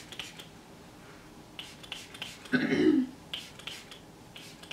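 A trigger spray bottle of leave-in conditioner spritzed onto wet hair in several short bursts, some in quick pairs, with wet hair rubbing between fingers. About halfway through, a brief hummed voice sound falls in pitch.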